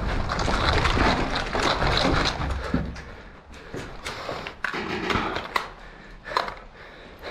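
Footsteps scuffing and crunching on gritty concrete and rubble, with gear and clothing rustling against the camera as the player moves. Later come a few separate sharp knocks or clicks.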